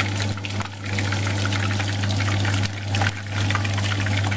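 Hot oil sizzling and crackling around a whole fish frying in a pan, with many small pops, over a steady low hum.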